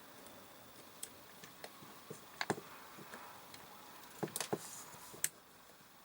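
Scattered light clicks and taps of small parts and a screwdriver being handled while a motor is screwed onto an RC truck gearbox. The loudest tap comes about two and a half seconds in, and a quick cluster of clicks follows about four seconds in.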